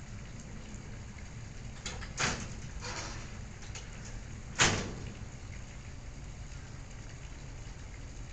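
A few sharp knocks or clatters over a steady low hum: several light ones about two to three seconds in, and a louder one at about four and a half seconds.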